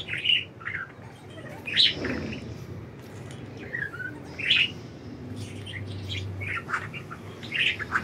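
Pet budgerigars chirping: short, high chirps and chatter in irregular bursts every second or two.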